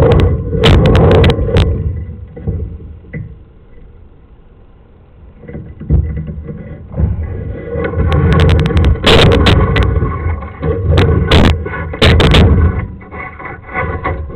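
Low rumble with irregular sharp knocks and clatter from handling a sewer inspection camera's push cable as it is drawn back and fed into the cleanout. It quiets for a few seconds in the middle, then the knocking returns louder.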